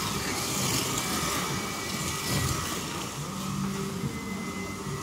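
Scalextric slot cars racing on a multi-lane routed track: small electric motors whining and the cars' wheels and guides running along the slots in a steady high whirr.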